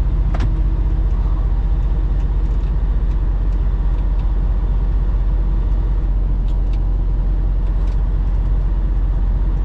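Semi truck's diesel engine and road noise droning steadily inside the cab at highway speed. There is a single sharp click about half a second in.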